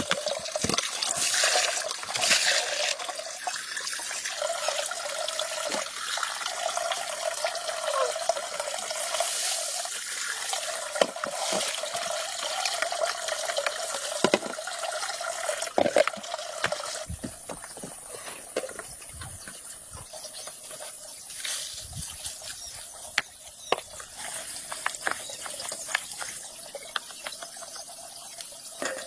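Water running and splashing steadily, with scattered short knocks and clatters.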